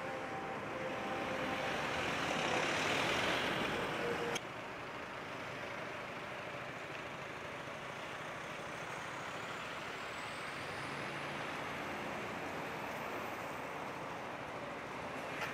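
City street traffic noise. A louder vehicle passes in the first few seconds, then the sound cuts abruptly to a steadier, quieter rumble of traffic. Later a faint high whine rises and falls.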